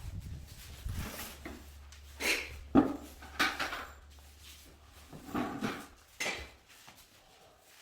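Irregular clinks, scrapes and knocks of hard objects being handled, one sharp knock a little before the midpoint, over a low hum that stops about two-thirds of the way through.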